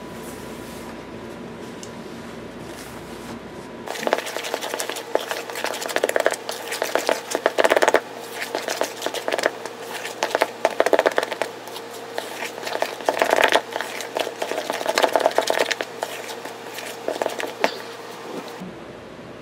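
Metal spoon stirring and scraping thick buttercream icing in a plastic tub, in repeated bursts of scraping and clacking against the sides. This follows a few seconds of steady low hum.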